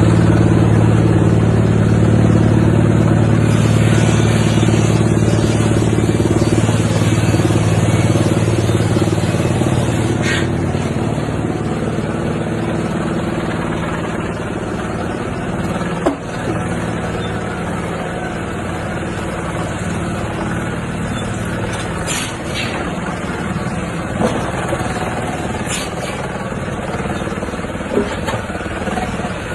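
Large wood chipper machine running with a steady low hum, louder for about the first ten seconds and then easing off, with a few sharp knocks here and there.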